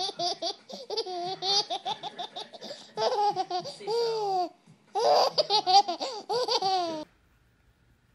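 A baby laughing hard in rapid, high-pitched bursts, with a short pause about four and a half seconds in. The laughter stops suddenly about seven seconds in.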